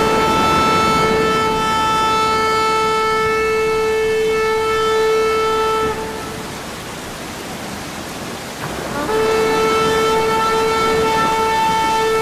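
Background music: a single droning note held steady, which breaks off about six seconds in, leaving a softer hiss, then sounds again about three seconds later.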